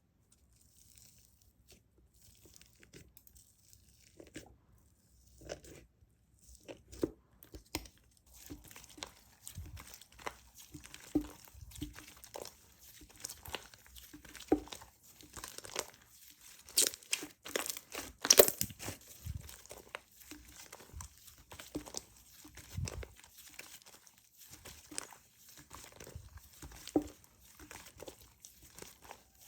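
Hands squeezing and stretching slime: an irregular run of sticky clicks, pops and crackles, faint at first and busier after a few seconds.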